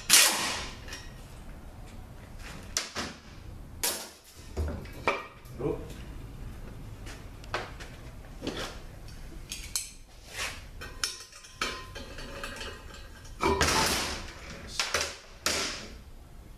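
A cordless power tool runs in short bursts, at the start and again about 13 seconds in, backing out the last bell housing bolts of an automatic transmission; between the bursts, metal parts clink and knock as bolts, tool and housing are handled.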